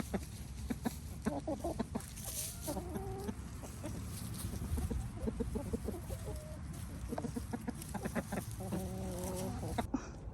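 Chickens clucking: runs of short clucks about a second in and again near the end, over a low steady rumble.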